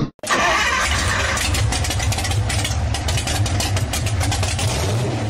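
An engine running steadily, a low rumble with a noisy crackle above it and no revving.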